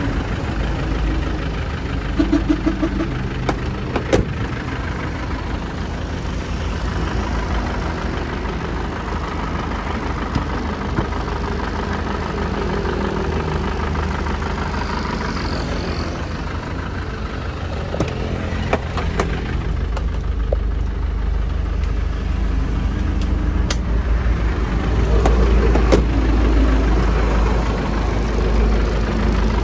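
Isuzu Hi-Lander's 2.5-litre four-cylinder diesel engine idling steadily, with a few short clicks and knocks.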